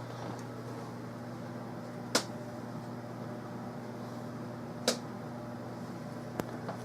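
Steady low hum with three sharp clicks: one about two seconds in, another near five seconds, and a fainter one near the end.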